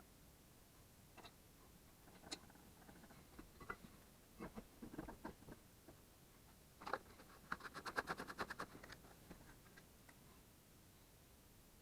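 Faint scattered clicks and light knocks of small objects being handled, with a quick run of rapid clicks, about a dozen a second, lasting about a second midway.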